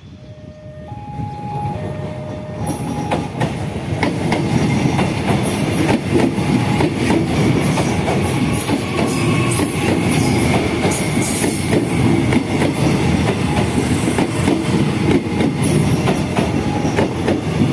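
A KRL Commuterline EA202 electric multiple unit passes close by with its wheels clacking over the rail joints. It grows louder over the first few seconds, then stays loud as the cars roll past.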